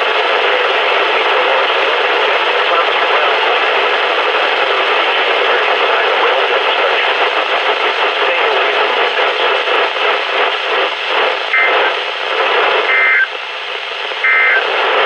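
Weather radio picking up a weak NOAA Weather Radio signal as loud, steady static hiss. Near the end come three short two-tone digital data bursts, each about a third of a second long and about 1.3 s apart, typical of the SAME end-of-message code that closes an alert.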